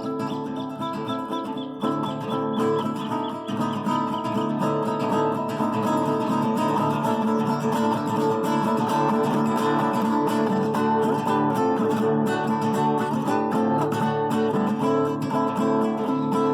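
Acoustic guitar playing, with strummed chords among plucked notes.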